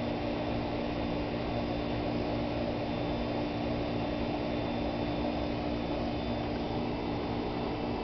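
A steady low hum under an even hiss, with no distinct sounds over it.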